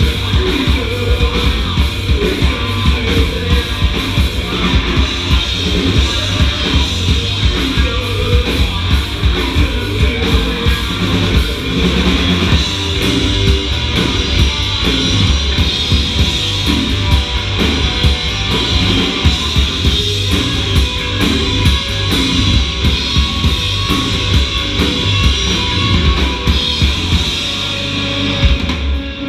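Heavy metal / hard rock band playing live and loud: electric guitar, bass guitar and drum kit together in a dense, driving wash.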